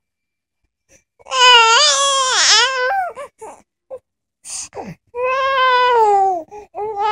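A baby's voice: two long, high-pitched calls, the first about a second in and the second about five seconds in, with short sounds between and after.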